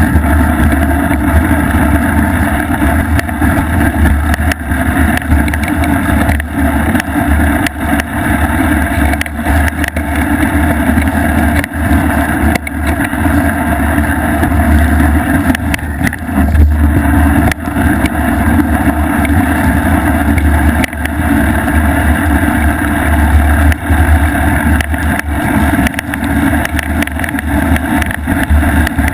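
Loud, steady rumble and rattle picked up by an action camera clamped to a bicycle fork while the knobby front tyre rolls over a snowy trail. The harsh rattling comes from a small loose part inside the camera, which the owner blames for the unpleasant sound.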